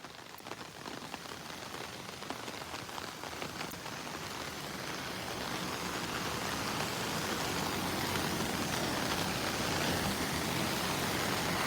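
Heavy typhoon rain pouring down, an even hiss with scattered drop impacts that grows steadily louder.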